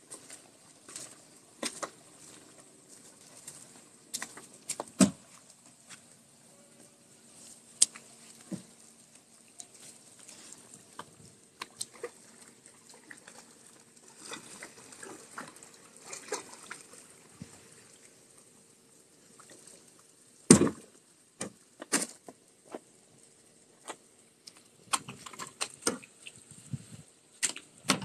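Kayak paddle blades dipping and splashing in calm water, with water trickling and dripping off the paddle. A few sharper splashes or knocks stand out, the loudest about twenty seconds in.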